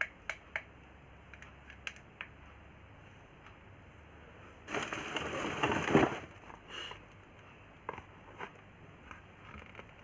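Scattered small clicks and taps of items being handled, with a burst of crinkling packaging lasting about a second and a half near the middle.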